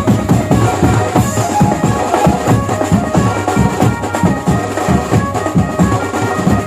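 Lively Indian banjo-party band music with a fast, steady drum beat.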